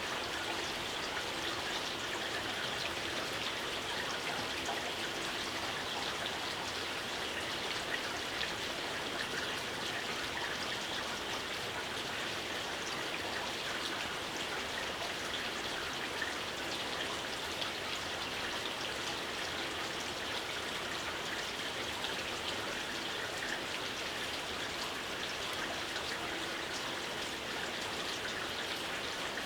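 Steady, gentle rain with many small drops pattering, an even hiss without breaks.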